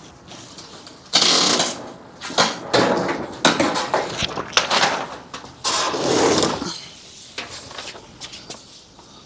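A hand truck carrying an air-conditioner condenser rolling and scraping on a concrete floor, with a run of loud clunks and scrapes as the unit is stood upright and the hand truck is worked out from under it; the loudest scrape comes about a second in.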